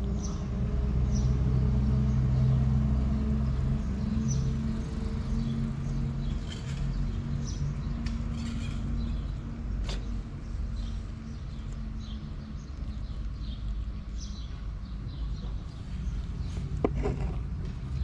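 A vehicle engine running with a steady low hum that fades after about seven seconds, while small birds chirp now and then. A couple of sharp knocks come near the end.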